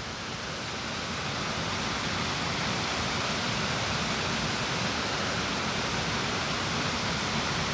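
Small brook's water rushing steadily, an even hiss of flowing water.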